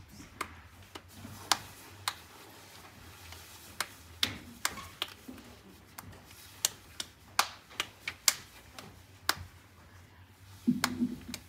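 Irregular sharp clicks and knocks, some louder than others, over a faint low hum, from people and equipment being moved about between songs. A brief low voice-like sound comes just before the end.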